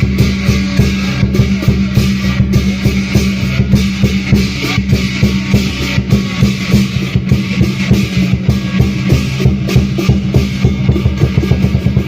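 Lion dance drum and cymbals playing a fast, loud, steady beat, several strokes a second.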